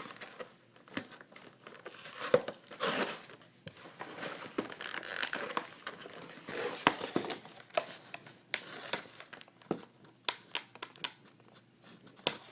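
Toy packaging crinkling and tearing as it is worked open by hand, with scattered sharp clicks and snaps; the package is hard to open.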